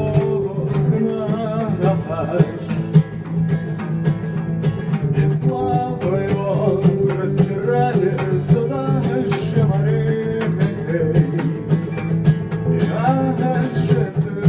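A band playing a song: guitar with a regular beat of sharp strikes and a singing voice.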